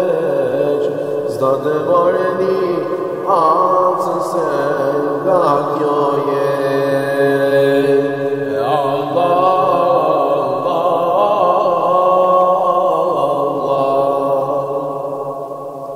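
Ilahi, a devotional Sufi hymn, chanted in long, ornamented melodic lines with held notes; the phrase tails off near the end.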